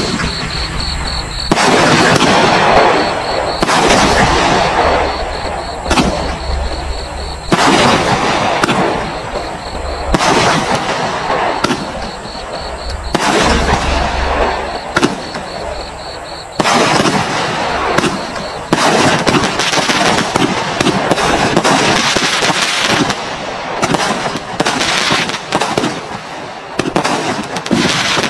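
Bright Star "Road Rage" 72-shot consumer firework cake firing: a continuous string of shots and aerial bursts in quick succession, with crackling.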